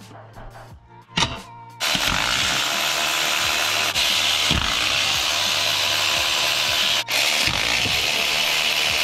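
Milwaukee cordless power tool running steadily as it backs out the clutch pressure-plate bolts. It starts about two seconds in, after a few light knocks, and breaks off briefly twice.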